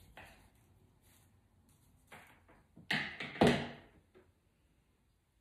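Short knocks and rustles from cut stems and tools being handled on a worktable, the loudest a pair of thuds about three seconds in.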